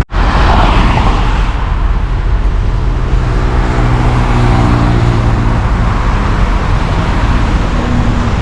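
Car driving on the road: steady engine and road noise, with a low engine hum standing out from about two seconds in.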